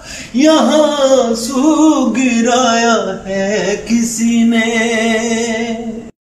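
A man singing a slow melody in long, wavering held notes with little or no accompaniment. The voice cuts off suddenly near the end.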